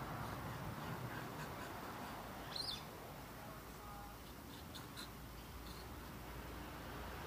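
A short high-pitched animal call about two and a half seconds in, followed by a few faint brief high peeps around five seconds, over steady outdoor background noise.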